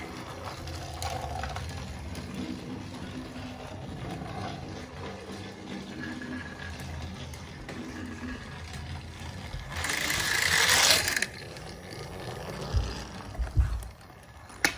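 Battery-powered TrackMaster Percy toy engine's small motor whirring steadily as it runs along plastic track. About ten seconds in comes a loud rustling noise lasting about a second, followed by a few low thumps.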